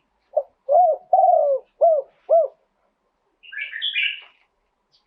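Spotted dove cooing a phrase of five low notes, the second and third drawn out. About a second later another small bird chirps briefly.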